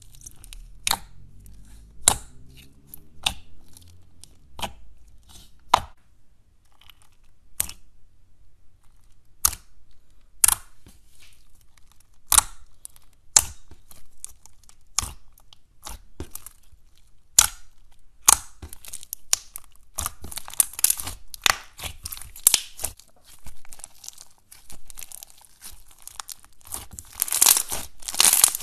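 Thick white slime with small foam beads being poked, stretched and kneaded by hand: sharp clicking pops every second or two, turning about two-thirds of the way through into a dense crackling that is loudest near the end.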